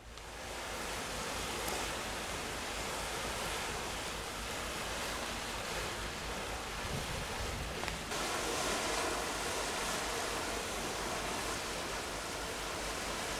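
Steady rushing noise of wind and sea from a moving cruise ship, with wind buffeting the microphone.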